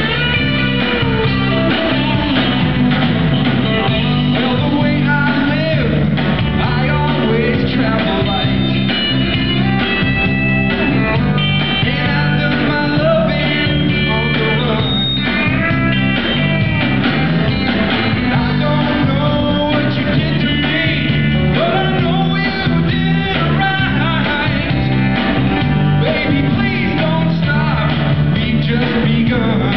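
Live band performing: acoustic and electric guitars playing a rock/country-style song, with a man singing.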